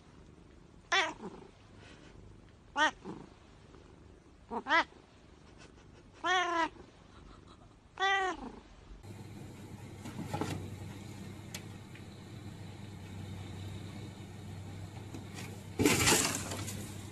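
A black-and-white cat meowing five times, about two seconds apart, each loud call rising and falling in pitch. After about 9 s the meows stop and a steady rushing noise takes over, with one loud noisy burst near the end.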